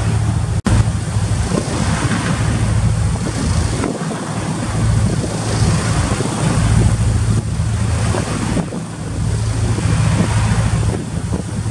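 Ship's engine running with a steady low hum, mixed with wind buffeting the microphone and the rush of the sea. The sound cuts out for an instant about half a second in.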